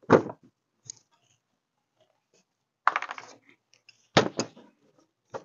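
Metal tools and small parts clinking and clattering as they are handled, in a few short bursts, the longest about three seconds in.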